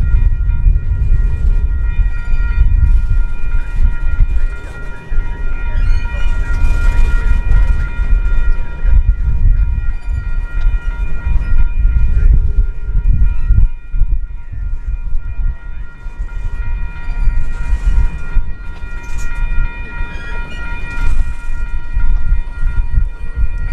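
Freight train of double-stack intermodal well cars rolling past close by: a loud, uneven low rumble and clatter of steel wheels on rail. Steady high-pitched ringing tones sit over it.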